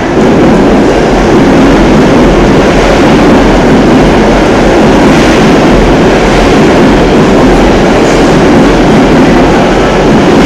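Loud, steady rumble of city noise: traffic and crowds at a busy street crossing.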